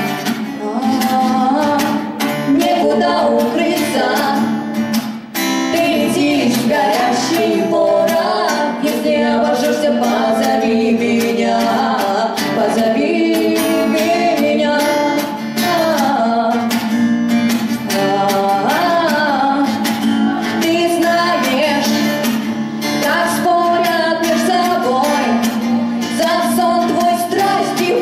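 A song performed live: a woman singing with acoustic guitar accompaniment, through microphones.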